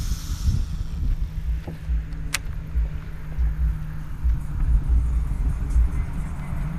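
Wind buffeting an outdoor action-camera microphone: an uneven low rumble with a faint steady hum under it, and a single sharp click about two seconds in.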